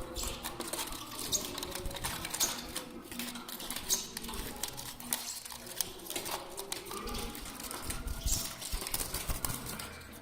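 Caged pet birds: a busy run of short high chirps and sharp clicks, with faint lower calls underneath.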